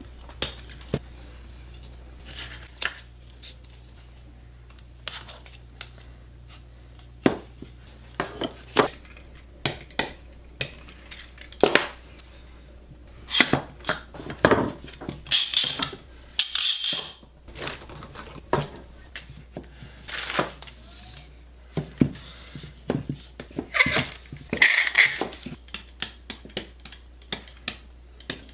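Hardwood offcuts and trigger clamps handled on a bench while pieces are glued up and clamped: a run of sharp clicks, knocks and clatter, with a few longer scraping bursts about halfway through and again near the end.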